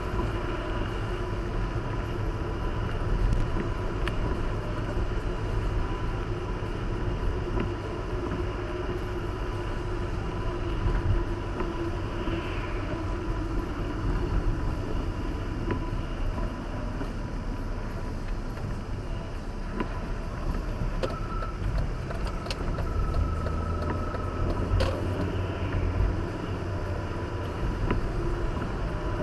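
Road noise inside a moving car, picked up by the dashcam's microphone: a steady low rumble of engine and tyres, with tyre hiss on a wet road. A few faint clicks come in the second half.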